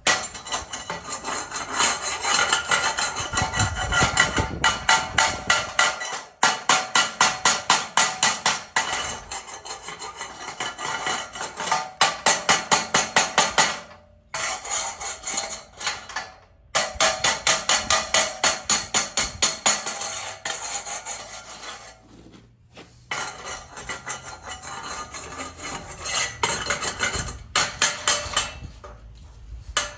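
A metal hand tool scraping and tapping rapidly at a gap or crevice, several sharp strokes a second in long runs, with brief stops. The strokes carry a metallic clatter.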